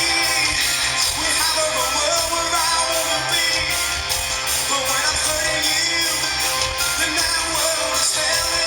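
A band playing a rock song live, loud and steady, with a regular beat.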